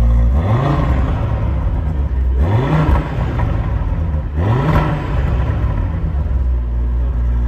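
Audi RS3's 2.5 TFSI five-cylinder engine idling and blipped three times, about two seconds apart, each rev rising quickly in pitch before dropping back to idle.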